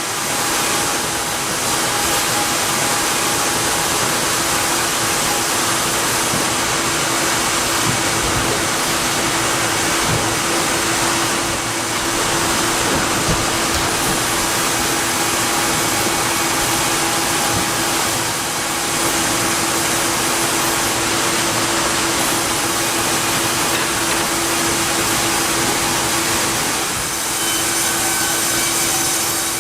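Woodworking machinery running steadily: a loud, even noise with a constant hum, dipping briefly a few times.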